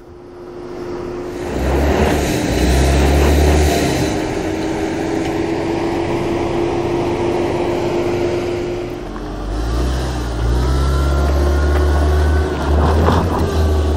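2022 Subaru Outback Wilderness's turbocharged 2.4-litre flat-four revving hard under load on a steep, sandy, rutted dirt climb, with tyres scrabbling in loose dirt. The revs ease briefly about nine seconds in, then build again.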